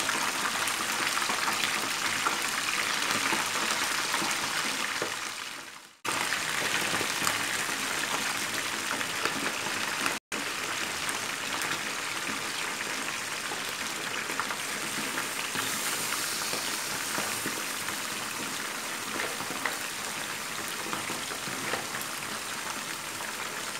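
Fish pieces frying in hot oil in a wok: a steady sizzle with many small crackles and pops. The sound fades out and stops for a moment about six seconds in, and drops out again briefly about ten seconds in.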